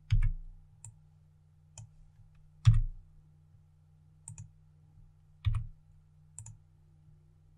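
Computer keyboard and mouse clicks: about eight separate clicks, a few in quick pairs, with three louder keystrokes that carry a dull thud.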